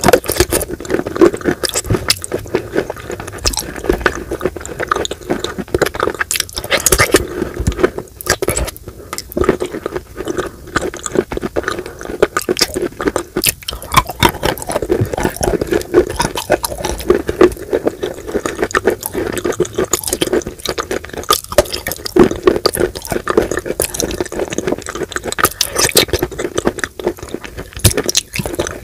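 Close-miked chewing of wet white chalk coated in a creamy paste: a dense, continuous run of crunching and wet, squelching clicks.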